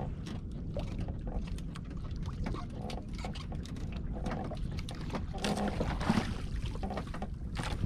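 Steady low rumble of a small outrigger fishing boat at sea, with scattered light knocks and clicks as a handline is worked over the side.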